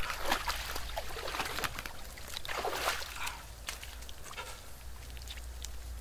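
Water splashing and sloshing as a person climbs out of a hole in lake ice, with water streaming off the body. The splashing is busiest in the first three seconds and settles after about four.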